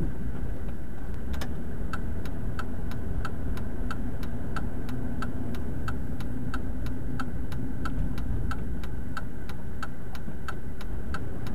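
Turn-signal indicator ticking steadily inside the cabin of a 2004 Jeep Cherokee, about one and a half ticks a second, over the low rumble of engine and road noise while driving. The ticking starts about a second and a half in.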